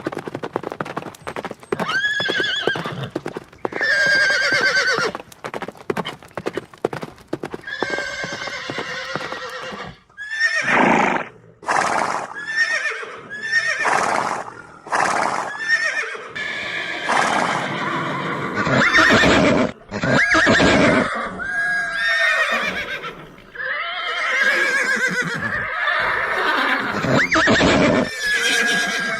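Horse hooves clip-clopping in quick, dense beats, with a couple of whinnies over them. About ten seconds in, horses start whinnying and neighing one call after another for the rest of the time.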